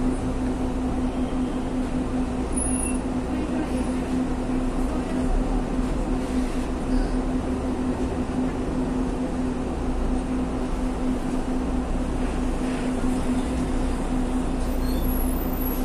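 City bus engine running steadily, heard from inside the cabin as the bus creeps along in traffic, with a constant low hum over the rumble.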